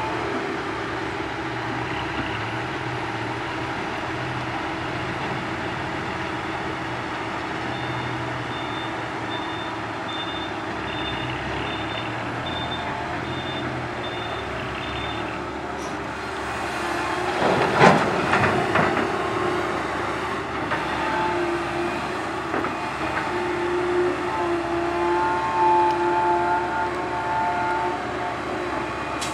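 Diesel engines of a Komatsu PC130 excavator and a dump truck running steadily, while a reversing alarm beeps about eight times in an even series. A little past halfway a loud crash of dirt and rock drops from the excavator bucket into the truck's steel dump bed.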